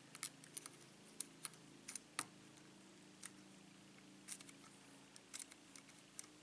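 Faint, irregular clicks and ticks of a lock pick working the pins of a 5-pin Sargent pin-tumbler lock, a dozen or so scattered taps with the loudest about two seconds in, over a faint steady hum.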